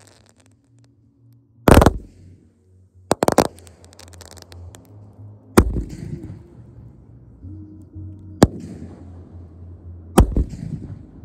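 Consumer fireworks going off: about five sharp bangs spaced a couple of seconds apart, two of them quick clusters of several reports, some followed by brief crackling. Music plays underneath.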